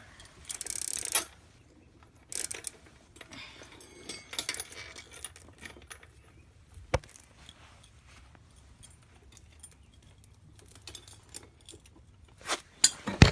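Bicycle chain rattling and clinking as it is taken off and handled, in several short bursts, with a single sharp knock about seven seconds in.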